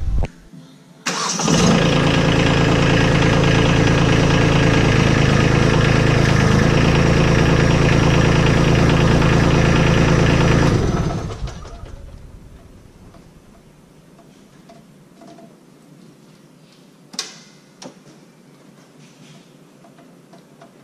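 Compact tractor engine starting about a second in and running steadily for about ten seconds while the front-mounted snowblower is raised on the hydraulic lift, then shut off and winding down.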